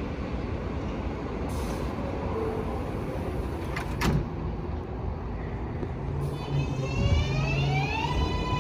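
L subway train's electric traction motors whining as it accelerates, over a steady low rumble. The whine is a layered tone that rises in pitch from about six seconds in and levels off near the end. A single sharp click comes about four seconds in.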